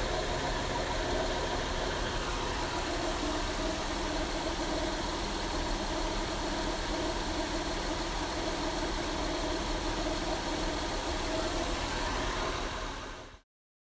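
Honda V6 engine idling steadily with a low rumble and rattle, the noise the owner traced to an aftermarket Contitech timing belt. The sound cuts off near the end.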